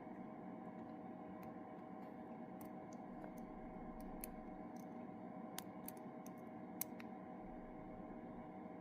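Lock pick and tension wrench working the pins of a padlock, with faint, irregular small metallic clicks over a steady low hum.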